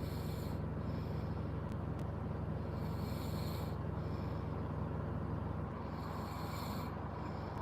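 A person snoring while asleep in a car, a rasping breath about every three to four seconds, over a steady low hum.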